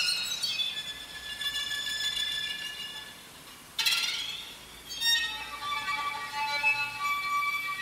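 Solo violin playing high harmonics in a contemporary piece: sustained high notes with a sharp attack about four seconds in and another a second later, each leaving several high tones ringing together.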